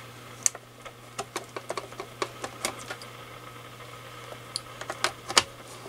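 Irregular clicks and taps of hands handling a small plastic power plug and the mic tester's case while reseating a loose power connection, over a steady low hum.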